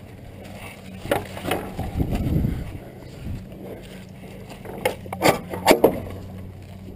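Wooden pen gate being worked by hand: a couple of knocks and a low rumbling shuffle in the first half, then a quick run of sharp knocks and clacks about five seconds in, the loudest of the clip, as the gate's spring-loaded metal latch is handled.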